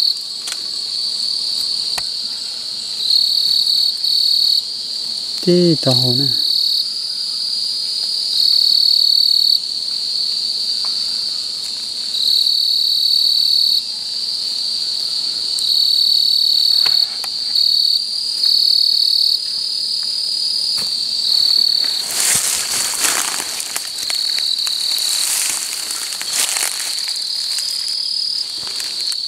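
Night insects trilling in a high, steady chorus that comes in phrases a second or two long with short gaps. About six seconds in there is one short, low-pitched call, and from about 22 to 27 seconds loud rustling of leaves and plants.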